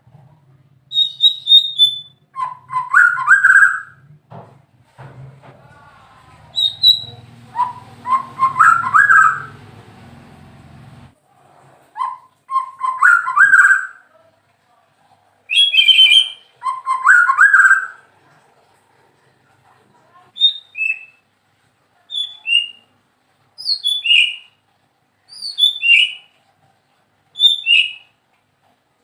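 White-rumped shama (murai batu) singing: loud phrases of rising whistled notes with high chips between them, then, from about two-thirds of the way through, a run of short falling whistles about one a second.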